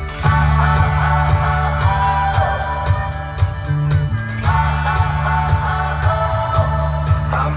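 Loud pop-rock show music with a steady drum beat, heavy bass and guitar.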